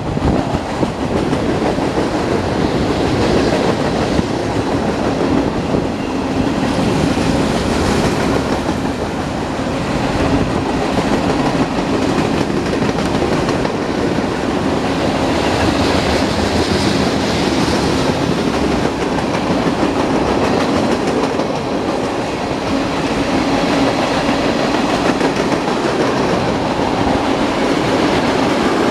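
Union Pacific mixed freight train rolling steadily past, its wheels running on the rails in a continuous loud rumble and clatter.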